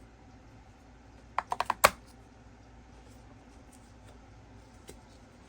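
A quick run of about five sharp clicks a little over a second in, the last the loudest, then one faint click near the end: fresh batteries being fitted into a Mitsubishi TV remote's battery compartment.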